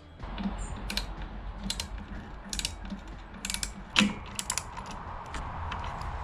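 Hand tools clicking and clinking against metal scooter parts as the carburettor box and its gasket are fitted, in an irregular run of sharp clicks with the loudest about four seconds in.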